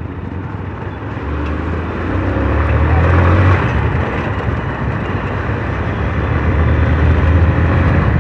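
Motorcycle's single-cylinder engine pulling under way with wind rush over the microphone; the engine note swells about a second in, eases off after three and a half seconds, and builds again toward the end.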